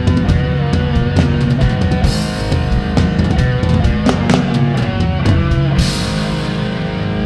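Heavy rock music: a drum kit beating a steady pattern under held guitar notes, with the cymbal playing changing about six seconds in.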